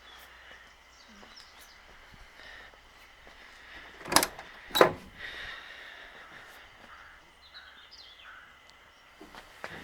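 Two sharp knocks about half a second apart, near the middle, over faint outdoor background with a few faint high chirps.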